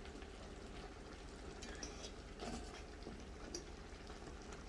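Pot of seasoned chicken simmering faintly as it cooks down, with a few small ticks over a steady low hum.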